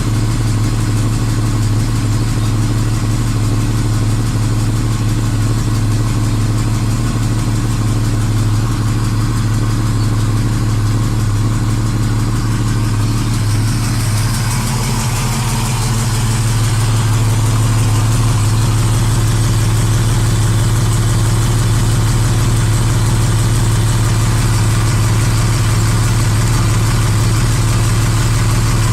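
BMW M1's M88 DOHC straight-six with mechanical fuel injection idling steadily and evenly after a cold start, at around 850 rpm. About halfway through, the sound becomes brighter, with more high hiss, and a little louder.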